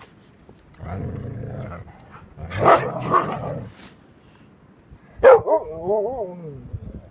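Husky vocalizing: a low grumble about a second in, a louder bark around three seconds, then a wavering, warbling howl near the end.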